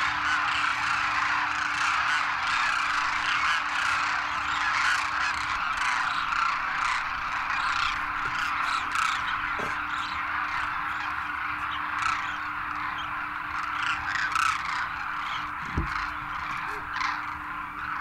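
A large flock of demoiselle cranes calling, many birds at once in a dense, unbroken chorus of overlapping calls.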